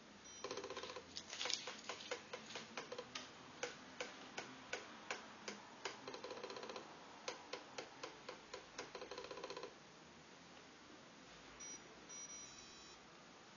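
Fidelity Challenger thermal printer printing: a quick, uneven run of sharp clicks, with a motor whir in several stretches as the paper feeds out. It stops suddenly about ten seconds in. The printer is running after a repair.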